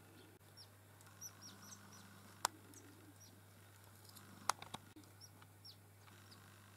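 Marsh tits calling: many short, thin, high chirps, each sliding downward, scattered throughout. Two sharp clicks, one about a third of the way in and one about two-thirds in, are the loudest sounds, over a faint steady low hum.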